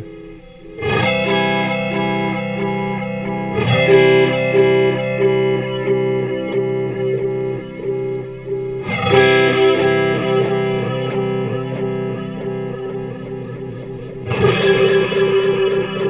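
Electric guitar chords, strummed four times and left to ring, through a Chase Bliss Spectre analog through-zero flanger set for sample and hold: square-wave modulation with the width slowly ramped, so the flanged tone jumps in steps about three times a second.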